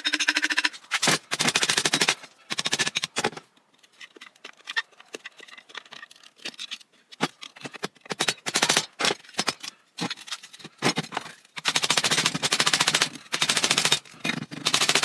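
Tool work on a ceiling fan's metal parts: repeated bursts of rapid mechanical clicking and rattling, each a second or two long, with the longest burst near the end.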